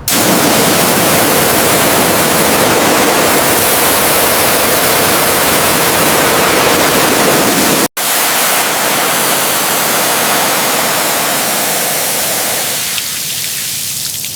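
A loud, steady hiss spread evenly from low to high pitch, cut off abruptly for an instant about eight seconds in. Over the last couple of seconds the low end thins out and a few faint clicks come through.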